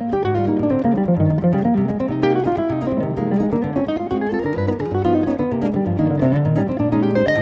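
Two guitars playing a fast instrumental piece, with rapid running lines that sweep down and back up in pitch over a repeating bass figure.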